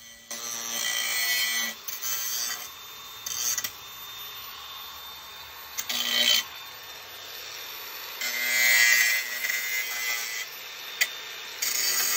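Angle grinder deburring the edges of a notch cut into the scooter frame's aluminium rear dropout. The motor hums under the grinding noise. It comes in several short passes that start and stop abruptly; the longest and loudest is about eight to ten seconds in, and a sharp click follows about eleven seconds in.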